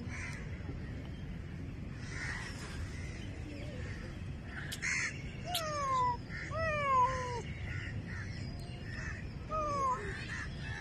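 Domestic cat meowing three times, each meow falling in pitch: two close together about halfway through and a shorter one near the end.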